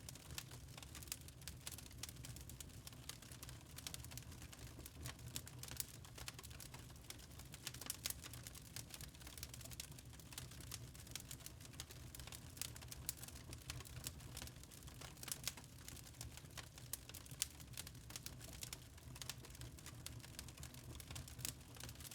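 Wood fire crackling: quick irregular pops and snaps over a low steady rumble.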